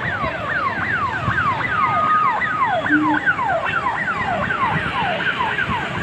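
Electronic emergency-vehicle siren wailing in rapid falling sweeps, about three a second, over steady background noise.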